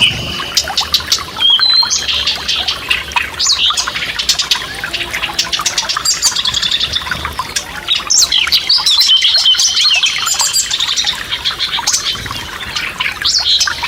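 Several songbirds singing and chirping, with rapid trills and short rising and falling notes, over the faint steady rush of a small stream.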